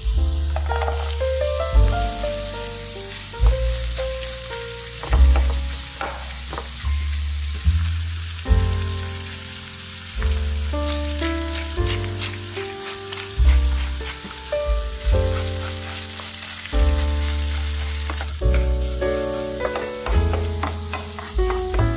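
Food sizzling in a frying pan, with scattered clicks of stirring. Background music with a bass line and notes that strike and fade is as loud as the frying or louder.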